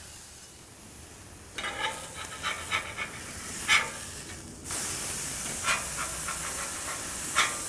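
Metal spatula scraping and clicking on the steel flat-top of a Blackstone griddle, then raw beef patties laid on the hot steel start to sizzle suddenly about two-thirds of the way in. A couple more spatula scrapes sound over the sizzle.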